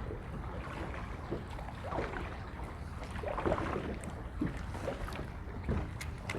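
Wind buffeting the microphone over water lapping, with irregular small splashes.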